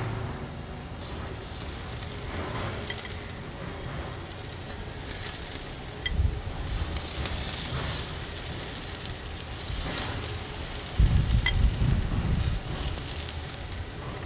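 Oil marinade sizzling on yellow squash on a hot grill as more is brushed on, a steady hiss with light crackle. Low rumbling bumps about six seconds in and again, louder, around eleven seconds in.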